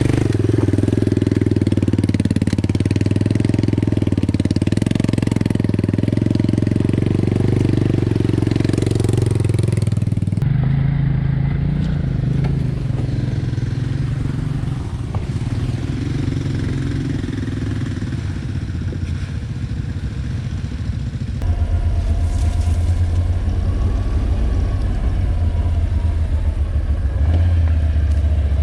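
ATV engine running steadily while the quad rides a trail. Its tone changes abruptly twice, about ten and about twenty-one seconds in.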